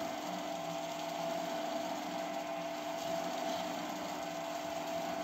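Screw press dewatering fungus residue, its electric gear motor turning the screw: a steady machine hum with a couple of steady tones over it.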